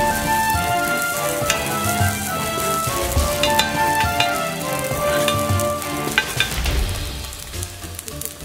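Fried rice sizzling on an extra-thick iron griddle over charcoal. A metal scraper taps and scrapes the plate as the rice is chopped and turned. Background music plays under it and fades out about two-thirds of the way through.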